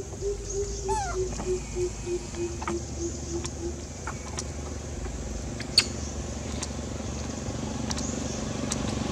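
An animal call: a run of about a dozen short, low hooting notes, roughly three a second and falling slightly in pitch, lasting about four seconds, with a brief high falling squeak about a second in and a few faint clicks.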